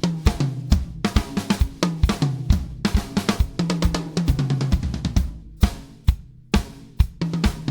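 Sonor Prolite drum kit with Paiste 2002 cymbals being played: snare and bass drum strikes, ringing tom hits and cymbal wash. The playing thins to a few sparse hits about five seconds in, then picks up again near the end.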